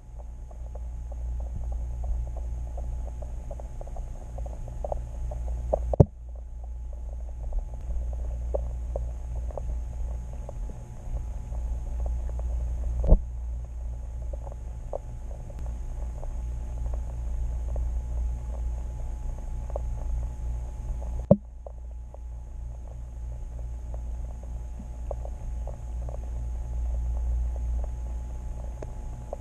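Underwater sound picked up by a submerged camera in a lake: a steady low rumble with faint scattered ticks and crackles, broken by three sharp clicks spread across it.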